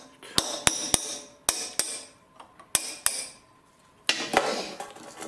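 Hammer tapping a steel chisel against the C-clip retaining a universal joint cap on an axle shaft to work it loose: about seven sharp, ringing metal-on-metal strikes in small groups, then a short scraping, clicking rattle near the end as the clip is pried out.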